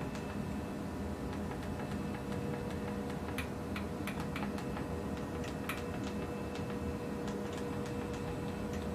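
Scattered sharp clicks, thickest from about three seconds in, as a KUKA industrial robot arm is jogged in small steps from its teach pendant, over a steady electrical hum.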